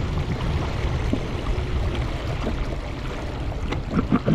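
Water washing along the hull of a moving fishing kayak over a steady low rumble. A few sharp knocks come close together near the end.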